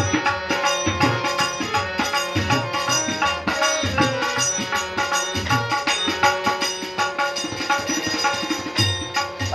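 Tabla played with the hands in a fast, dense rhythm, with deep bass strokes recurring through it, over steady held tones from another instrument.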